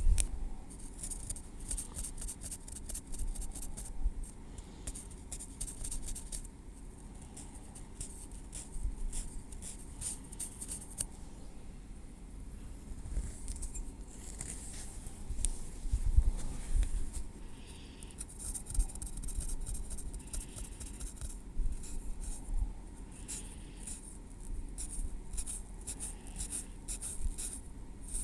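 Metal tweezers working through hair and on the scalp, close-miked: runs of rapid, crisp little clicks and light scrapes in clusters, with a few soft low bumps from handling.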